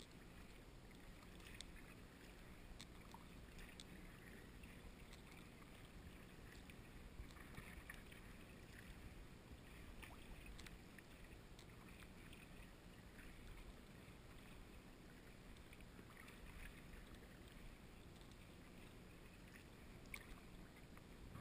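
Very faint splashes and drips of a kayak paddle dipping into calm sea water, coming irregularly every second or so.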